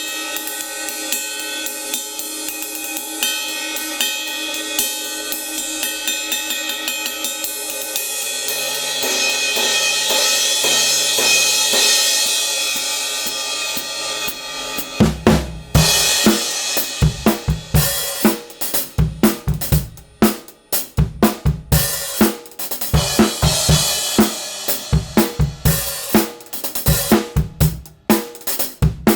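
Kingdo SN8 B8 bronze cymbals being played on a drum kit: for the first half a dense, continuous cymbal wash with many ringing overtones, then from about halfway a full drum-kit groove, with kick and snare hits under the cymbals.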